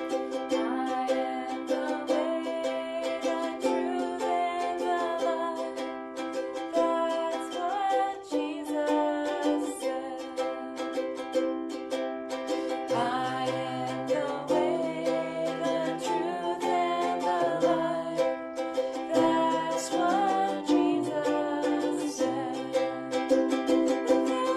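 Music led by strummed ukulele, with a melody line over it; a bass line joins about 13 seconds in.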